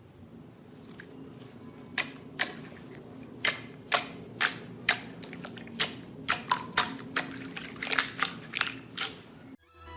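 Slime being squeezed and poked, making a run of sharp, irregular clicking pops that begin about two seconds in and come more densely toward the end.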